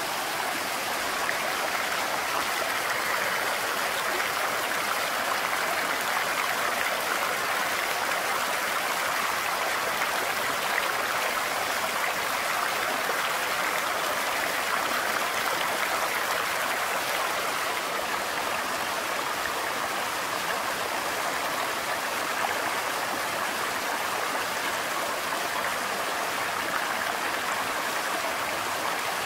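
A rocky stream rushing and splashing over stones in a steady, even wash of running water.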